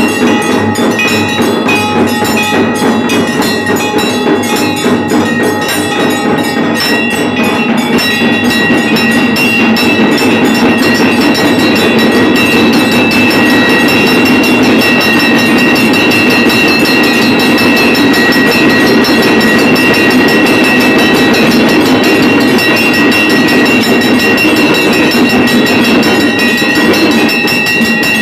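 Hindu temple aarti din: bells and percussion struck rapidly and without pause, a loud, dense clanging with a steady ringing pitch over it. It grows fuller about eight seconds in.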